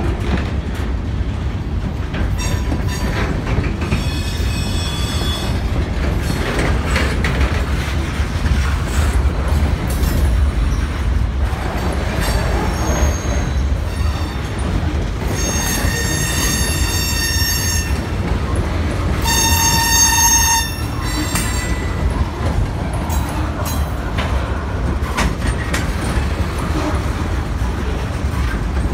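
Loaded freight train of covered hopper cars rolling through a grade crossing: a steady low rumble and clatter of steel wheels on the rails. Several times a high-pitched wheel squeal rises over it, longest and loudest about two-thirds of the way through.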